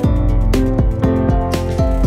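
Instrumental background music with held notes and a regular beat.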